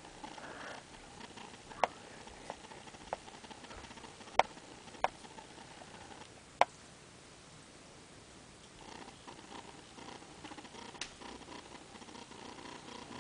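Faint snoring of a sleeping person, rising again near the end, with about seven short sharp clicks scattered through the first half and one more a couple of seconds before the end.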